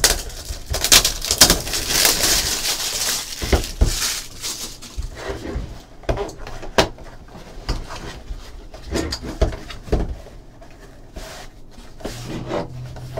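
Packaging being handled as a trading-card box is opened: rustling and tearing of wrap or paper over the first few seconds, then scattered light clicks and knocks of cardboard and contents being handled.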